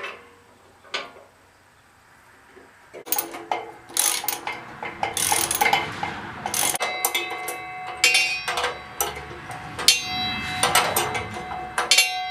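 Carriage bolts and steel disc-frame parts being fitted by hand: after a quiet start with a couple of clicks, metal clanks and clinks that ring, with quick runs of clicking about ten seconds in.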